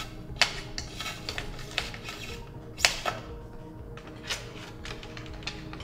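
Scattered light clicks and taps as flexible coolant tubing is handled and routed through a server chassis, about half a dozen, the loudest about three seconds in, over quiet background music.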